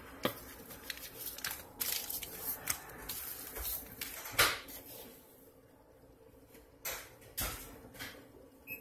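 Scattered rustles, taps and soft knocks from handling raw flounder fillets on parchment paper while seasoning them with a shaker. The sounds are busy for the first half and sparser after, with a few sharper knocks near the end.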